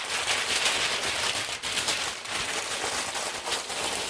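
Packing material crinkling and crackling steadily as it is handled, a dense run of small rustles and crackles.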